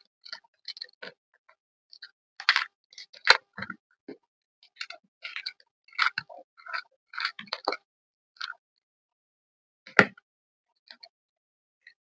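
Dry, crumbly chalk-like material being crushed: irregular crisp crunches and crackles with short gaps, and a sharper crack a few seconds in and again near the end.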